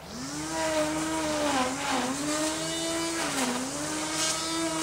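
Lawn trimmer motor starting up and running at speed, a steady whine with two brief dips in pitch as the throttle eases.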